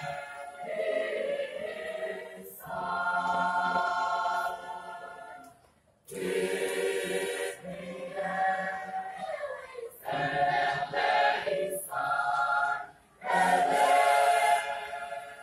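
Church choir singing in long held phrases, breaking off briefly about six seconds in before the next phrase.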